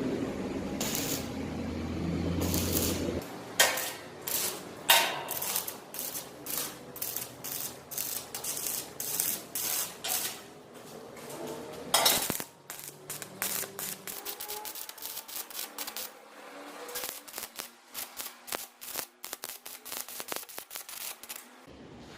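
Quick, irregular metallic clicks and taps, several a second, from work on a steel door frame. A low hum runs under the first three seconds.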